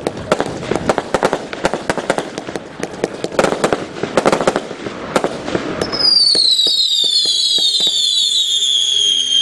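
Fireworks: a rapid, dense run of firecracker bangs for about six seconds, then several whistling fireworks shrieking at once, their pitch falling slowly.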